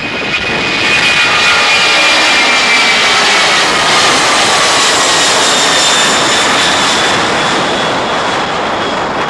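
Airbus A300-600ST Beluga's two General Electric CF6-80C2 turbofan engines at takeoff thrust as the freighter lifts off and climbs away. Loud, steady jet noise with high whining tones that slowly fall in pitch, easing a little near the end.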